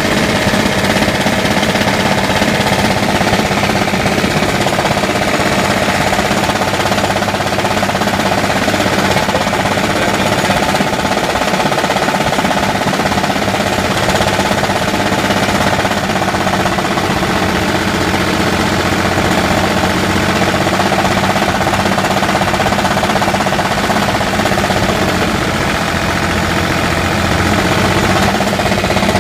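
Engine running with a loud, steady, rapid knocking: engine knock.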